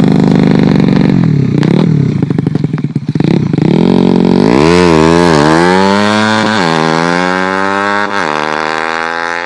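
Yamaha Vega motorcycle engine, tuned up to 130 cc, being revved. There are a few quick throttle blips over the first three seconds, then the revs climb from about four and a half seconds in, dip twice, and hold high before easing off near the end.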